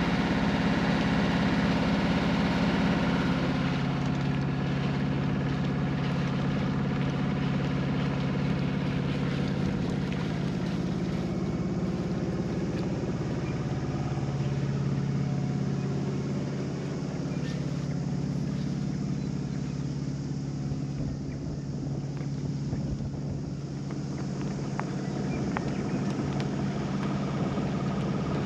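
Small sailboat's inboard engine running steadily under way, a constant low engine drone with some water and hull noise over it.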